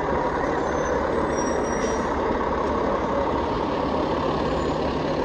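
A ladder fire truck's diesel engine running steadily as the truck rolls slowly past at close range.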